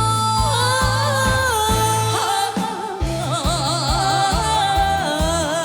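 Music: a ballad duet with band accompaniment and a steady drum beat, its melody line held with wide vibrato in the second half.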